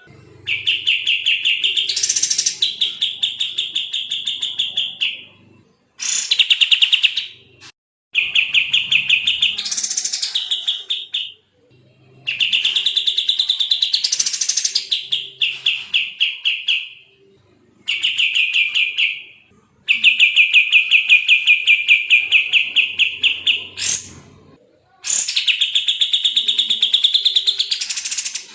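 Kapas tembak bird singing in long bursts of very fast, tightly packed repeated notes, about seven phrases in a row with short pauses between. Some phrases swell upward in pitch partway through.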